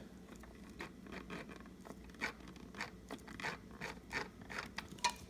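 Sewing machine mechanism turned slowly through a stitch, the hook carrying the thread around: faint, irregular clicks and scrapes.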